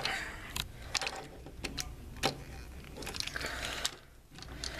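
Hard plastic parts of a Transformers Generations Voyager Springer action figure clicking and rattling as they are handled and pushed into place: an irregular scatter of light clicks with some rustling.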